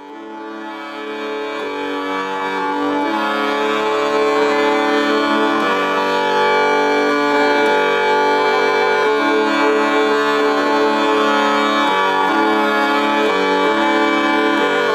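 Zampogna, the southern Italian bagpipe, played solo: a tune on its two chanters over steady sustained notes, fading in over the first few seconds.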